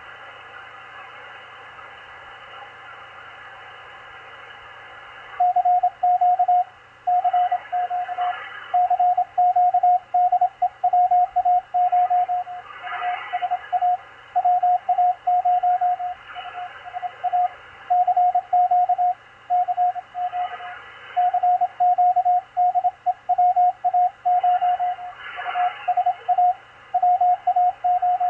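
Morse code (CW) on the 20-metre amateur band from a Machilite DSP SDR receiver: a steady mid-pitched beep keyed on and off in dots and dashes over band hiss and static crackle. For about the first five seconds only the receiver's hiss is heard, then the keying starts and carries on.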